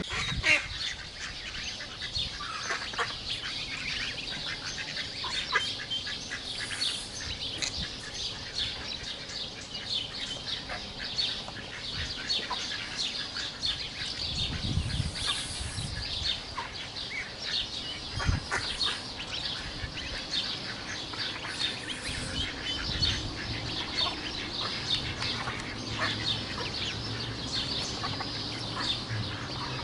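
A flock of domestic ducks and geese with ducklings, calling with a steady stream of short, high peeps and chirps.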